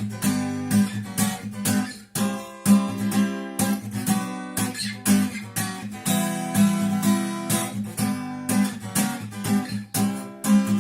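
Acoustic guitar strummed in a steady rhythm of chords: an instrumental passage between sung verses.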